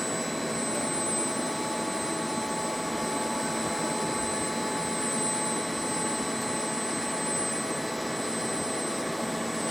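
TOS WH-105 horizontal boring mill, retrofitted to CNC, running steadily: an even mechanical rush with a constant high-pitched whine over it.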